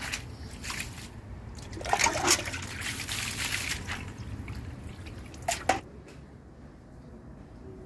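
Water sloshing and trickling in a vessel, in a few bursts, quieter for the last couple of seconds.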